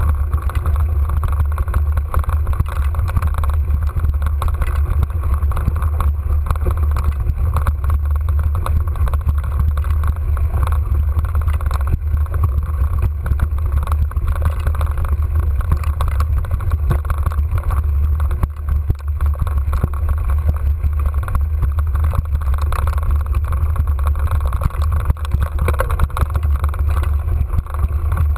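Steady low rumble of a mountain bike climbing a dirt singletrack, picked up by an action camera riding along: tyres on the trail, rattle and wind on the microphone.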